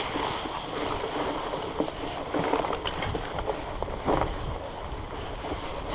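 Wind rushing over the microphone with a low rumble from a Surly Moonlander fat bike being ridden, and a single knock about four seconds in.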